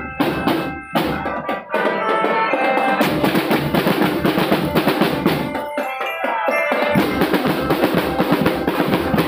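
School marching drum band playing: snare drums and bass drums beating a busy marching rhythm, with a bell-like tune on marching bells above it. The deep bass drum strokes drop out for about a second a little past the middle.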